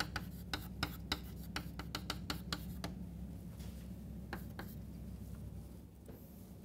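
Chalk tapping and scratching on a chalkboard as an equation is written: a quick run of sharp clicks over the first three seconds and a few more about four and a half seconds in, over a steady low hum.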